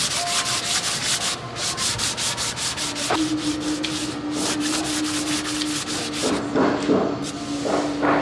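Wet sandpaper rubbing back and forth by hand on a gelcoat part: quick, even sanding strokes, about four a second, which turn slower and uneven after about six seconds.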